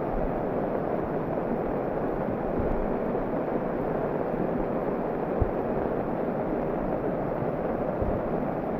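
Muddy flash-flood water after a cloudburst, rushing past in a steady roar, with a brief low thump about five and a half seconds in.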